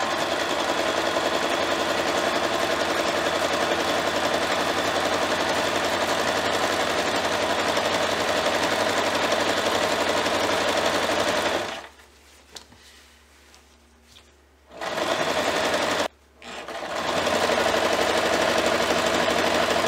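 Singer electric sewing machine running steadily as it stitches a seam along a folded strip of fabric. It stops for about three seconds past the middle, then starts again in a short run, pauses briefly, and runs on.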